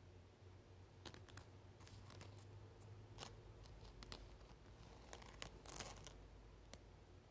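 Near silence: quiet room tone with a faint low hum and scattered faint clicks, including a short cluster of clicks and rustling just before six seconds in.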